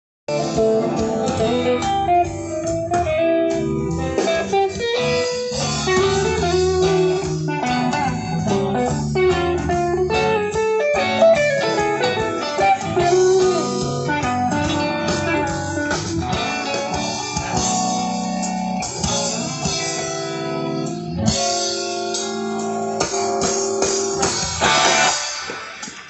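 Live rock band soundcheck through a festival PA: electric guitar playing melodic lines over the band, with a brief gap right at the start and the level falling away near the end.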